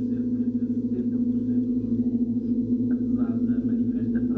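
A steady low droning tone, with muffled, indistinct voices over it.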